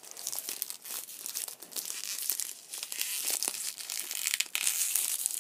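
Plastic packaging crinkling and tearing in irregular crackles as a speed cube is unwrapped from its box, busier near the end.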